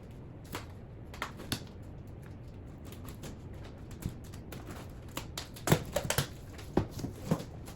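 Packaging being handled as a box is opened and parts are taken out: scattered clicks and rustles, with a quicker run of louder knocks in the last couple of seconds.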